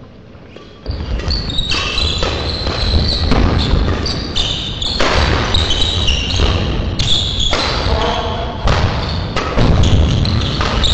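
Badminton doubles rally in a large hall, starting about a second in: rackets striking the shuttlecock, feet thudding, and short high squeaks of court shoes on the floor.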